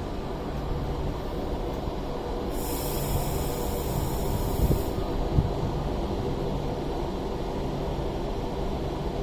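Class 390 Pendolino electric train running through the platform with a steady rumble. A high-pitched whine is heard for a couple of seconds near the middle, along with a couple of short knocks.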